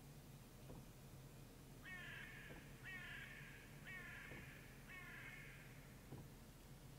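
Common raven calling four times, about once a second: short, faint calls that fall in pitch.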